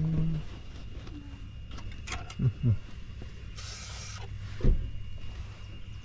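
A short hiss of an aerosol can of Cosmoline rust-preventive coating being sprayed onto the car's underbody steel, lasting about half a second just past the middle. Around it there is a low hummed note at the start, two brief low grunt-like sounds about two and a half seconds in, and a single sharp knock just after the spray.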